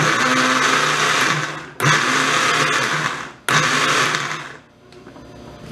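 Countertop blender run in three short pulses, each starting suddenly and winding down after a second or so, chopping chunks of bell pepper, onion and cream cheese into a sauce.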